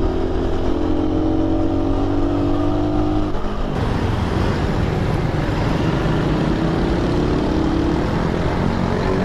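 Suzuki Raider 150 single-cylinder motorcycle engine running under way, with wind rush on the helmet-mounted microphone. The sound changes abruptly about a third of the way in, and the engine note then climbs steadily as the bike accelerates.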